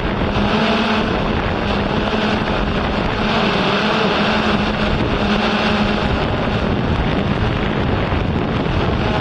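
Yuneec Typhoon H hexacopter's rotors and motors running in steady flight: a constant hum with a rushing, wind-like whir over it.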